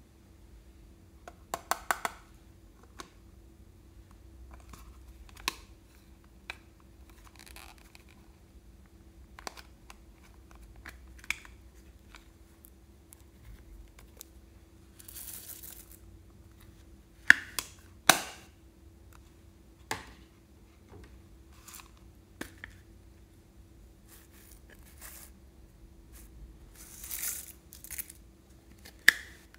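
Plastic container handling with scattered sharp clicks and knocks, and a few short hissing rustles as sprinkles and glitter toppings pour into a glass dish, over a faint steady hum.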